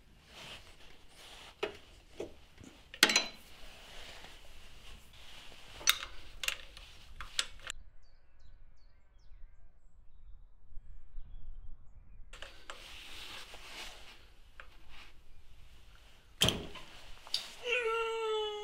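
Metal socket and wrench clicking and clanking on the crankshaft pulley nut of a Renault D4F engine as the nut is undone with the flywheel locked, in irregular sharp knocks with a few seconds of quiet in the middle. A wavering high-pitched whine comes in near the end.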